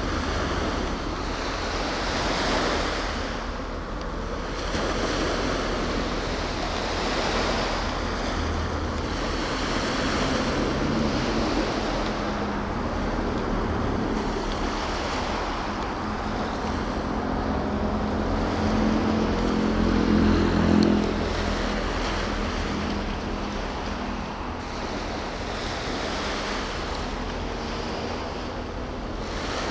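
Water washing against the shore and wind buffeting the microphone, swelling and easing every few seconds. A low engine hum builds from about ten seconds in, is loudest a little before the twenty-second mark, then drops away.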